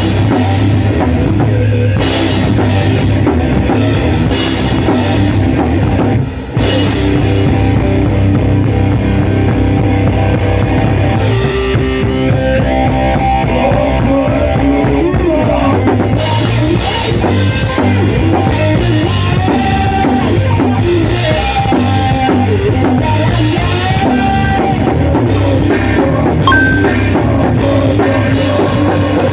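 A heavy hardcore punk band playing at full tilt: a drum kit with crashing cymbals over a dense wall of guitar and bass. The band breaks off for a moment about six seconds in. The cymbals then drop out for a few seconds before the full kit comes back.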